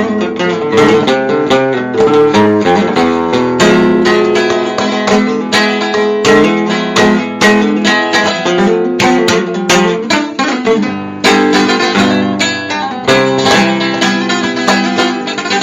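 Acoustic guitar playing a quick passage of many plucked notes mixed with strummed chords.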